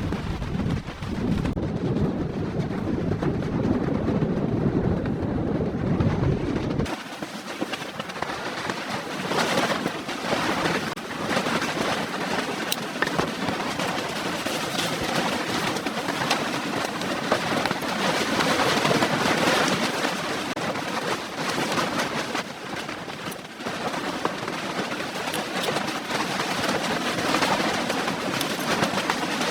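Strong blizzard wind, a low rumble for the first seven seconds or so, then changing abruptly to a higher steady hiss with scattered short ticks.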